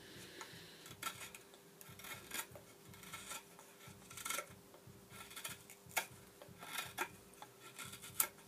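Small Victorinox kitchen knife shaving wood in a trial at whittling: short, irregular scraping strokes, about one or two a second.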